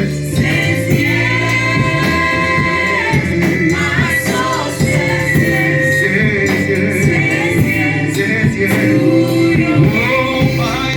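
Gospel music, with voices singing over sustained instrumental backing.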